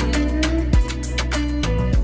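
Background music with a steady beat and a bass line.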